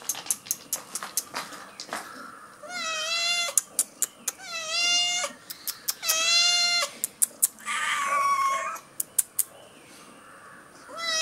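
Hungry domestic cats meowing at a basin of fish: three loud, drawn-out meows about a second each, then a rougher, wavering call, with another meow starting right at the end. Many short, sharp clicks run between the calls.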